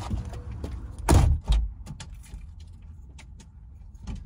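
A person getting up from the driver's seat and moving about inside a camper van: a heavy thump about a second in and a second knock just after, then scattered light clicks and rattles over a low steady rumble.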